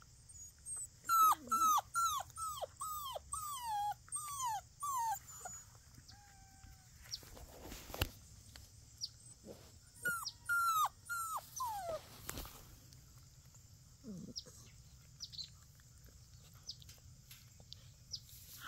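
Young puppies whining: a run of short calls that fall in pitch, about two a second, starting about a second in, then a second shorter run about ten seconds in. Two soft knocks fall between them.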